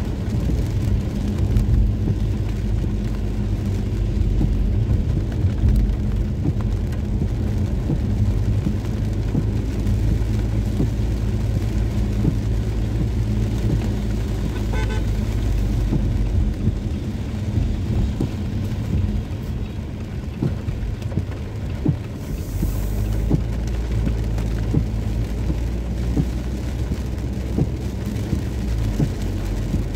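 Steady low rumble of car traffic on wet streets in the rain, with scattered ticks of raindrops.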